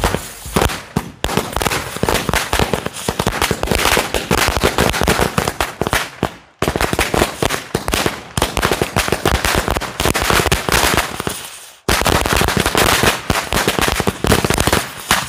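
A 1000-wala string of firecrackers going off in a rapid, continuous chain of small bangs, with two brief lulls, about six and a half seconds and twelve seconds in. The bangs stop just before the end.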